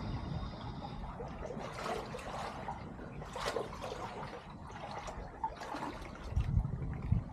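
Shallow brook water trickling and splashing close to the microphone, with louder splashy rushes about two, three and a half and six seconds in, and a few low thumps near the end.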